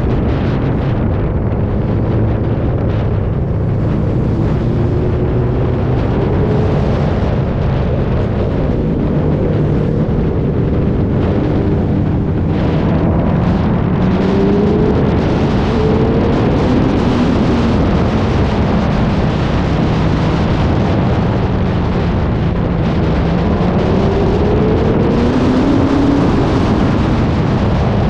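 Vehicle engine running under load, its pitch rising and falling as it revs up and down, with heavy wind noise buffeting the microphone.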